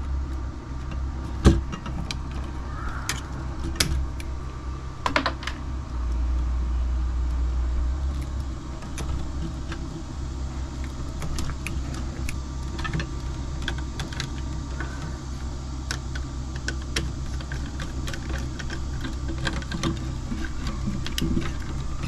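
Scattered small clicks and light rattles of wire strippers and copper wire being handled while wires are stripped and pushed into connectors at an electrical box, with one sharp click about a second and a half in. A steady low hum runs underneath.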